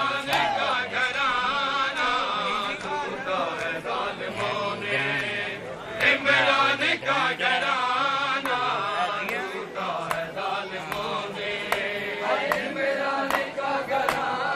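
Large crowd of men chanting in unison, punctuated by sharp slaps of hands on bare chests in matam, about two a second, most distinct in the second half.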